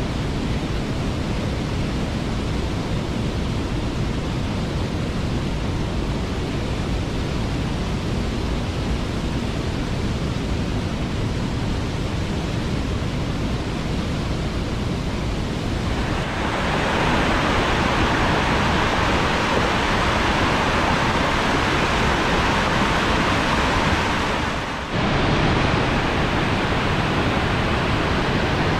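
Waterfall: a steady rush of falling water, growing louder and brighter about halfway through, with a brief dip near the end.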